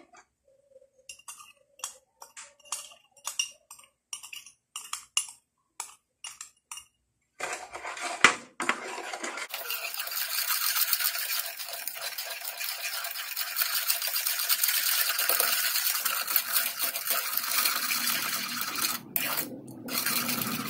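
Spoon stirring sugar into vinegar in a bowl: separate clinks and scrapes against the bowl at first, then from about seven seconds in fast, continuous scraping as the stirring speeds up, stopping near the end.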